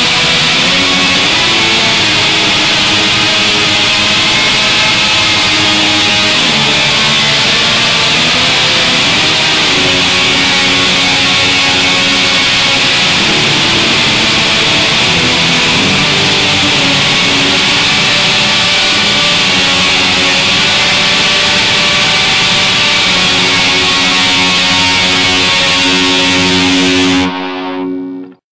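Guitar instrumental music: loud, dense guitar playing with sustained notes, breaking off suddenly about a second before the end.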